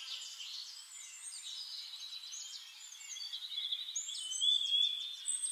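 Birdsong: a chorus of high chirps, whistled notes and quick trills, growing louder in the last second or so.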